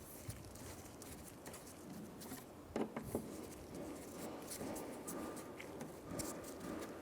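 Scattered light clicks and scrapes of hand tools and metal parts being worked inside a car door, with a couple of sharper clicks about three seconds in.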